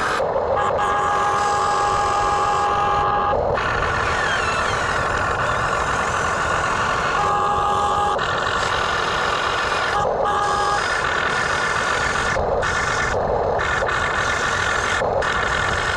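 Radio-controlled backhoe excavator running, a steady mechanical whirr with high tones that start and stop in spells of a few seconds, broken by short pauses.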